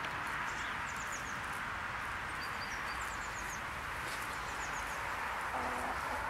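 Small birds chirping in quick runs of three or four high notes over a steady outdoor hiss, with a short low call from a hen near the end.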